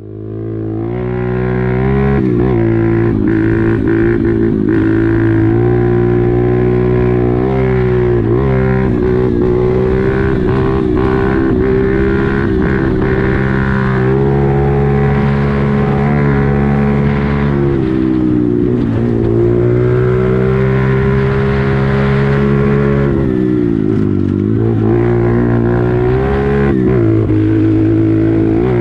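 YCF 125cc pitbike's single-cylinder four-stroke engine heard from on board while riding, held at a mostly steady speed, with the pitch dropping and climbing back a few times as the throttle is eased off and opened again. It fades in over the first couple of seconds.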